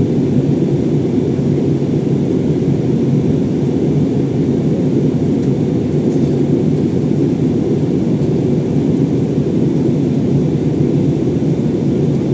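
Passenger jet cabin noise during descent: the engines and rushing air heard from inside the cabin as a steady, even low rumble.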